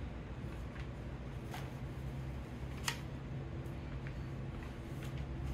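Sheets of a homemade printer-paper book being handled and turned on a tray table, with a few short crisp rustles and taps, the sharpest about three seconds in. A steady low room hum runs underneath.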